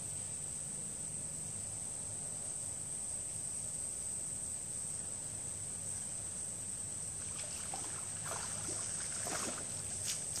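Steady high-pitched drone of crickets or other insects, with a hooked crappie splashing at the surface during the last few seconds as it is reeled in to the bank.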